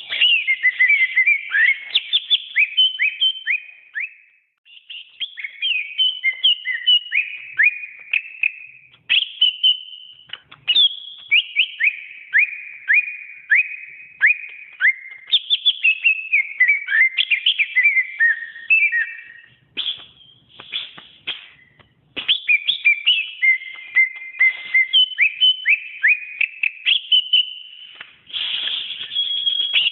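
Cucak ijo (green leafbird) singing a long, varied song of rapid down-slurred whistled notes, phrase after phrase, with a few short pauses.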